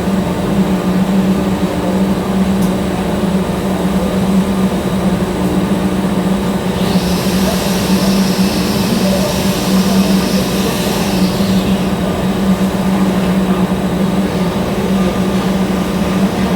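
TIG welding setup running with a steady low hum and buzz. A higher hiss joins for about five seconds in the middle.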